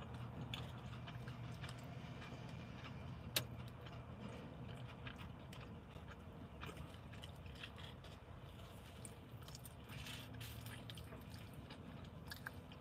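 Faint chewing of fried chicken tenders, with small clicks and rustles of handling and one sharp click about three and a half seconds in, over a low steady hum.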